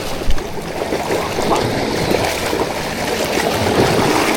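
Water splashing and rushing, with a single thump just after the start.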